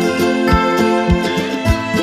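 Background music: held instrument notes over a steady beat of about two strikes a second.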